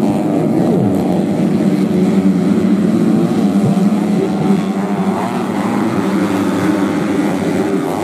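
Several underbone (bebek) racing motorcycles running together, their engines overlapping and rising and falling in pitch as the riders rev and ease off.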